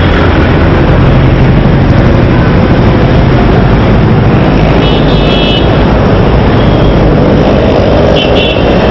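Loud, steady road traffic noise with vehicle horns sounding briefly, twice: once about five seconds in and again near the end.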